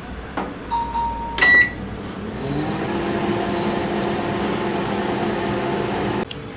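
Microwave oven being started for baking: a click and two beeps, the second short and loud. The oven then starts running with a steady hum that rises in pitch as it spins up, and cuts off suddenly near the end.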